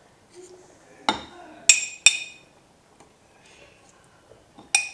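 Metal spoon clinking against a stainless steel stockpot while skimming fat off simmering bolognese sauce. There are four sharp, briefly ringing clinks: two loud ones close together about two seconds in, and one near the end.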